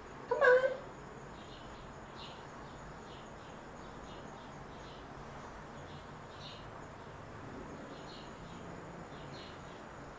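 Quiet room tone with faint, short, high chirps coming irregularly, about one or two a second. Just after the start there is one brief high-pitched vocal sound.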